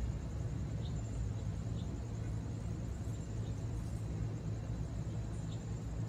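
Steady low rumble of distant traffic, with a thin high buzz above it and a few faint short chirps: about a second in, near two seconds and near the end.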